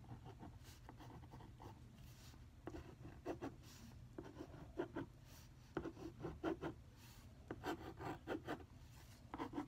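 A marker scribbling on paper while colouring in a drawing: faint, in short groups of quick strokes, mostly from about three seconds in.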